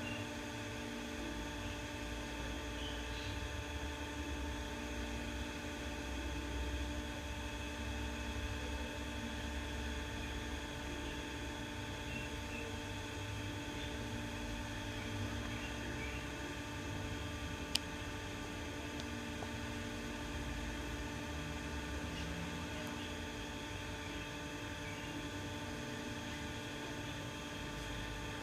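48-inch CMC Niko industrial ceiling fan running, its motor giving a steady hum made of several steady tones. A single sharp click about two-thirds of the way through.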